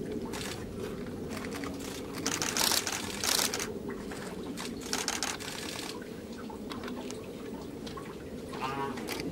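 Snow crunching and rustling under a snow leopard cub as it rolls over onto its back and wriggles in it: a few short clusters of crunchy rustles, loudest about two to three and a half seconds in, over a steady low background noise.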